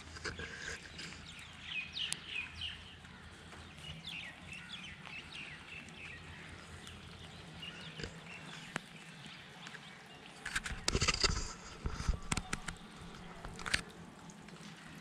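Birds chirping over the faint steady patter of light rain. About ten and a half seconds in comes a louder, irregular burst of noise lasting a second or two.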